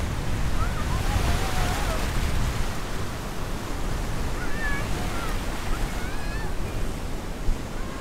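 Choppy surf washing and breaking on the shore, with strong wind buffeting the microphone in a steady low rumble. The surf swells louder about a second in.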